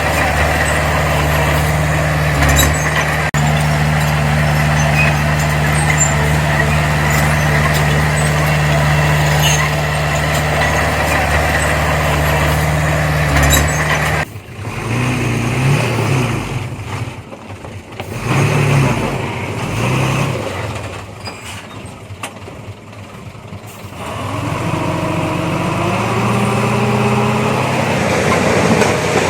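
Heavy earthmoving machinery's diesel engine running steadily under load. About halfway through the sound changes abruptly to a quieter engine whose speed drops and rises, with the pitch climbing again in the last few seconds.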